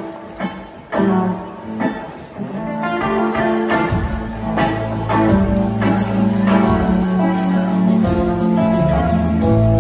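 Live blues-rock band with electric guitars. Separate picked guitar notes and chords ring out at first, then about four seconds in the bass and full band come in with held low notes.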